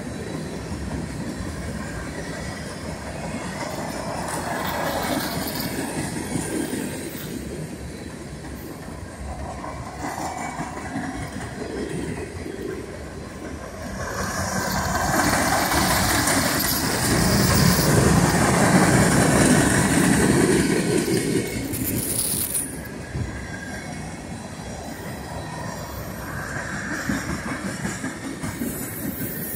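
Freight train cars rolling past at speed: continuous wheel-on-rail noise, which grows louder and brighter for several seconds about halfway through.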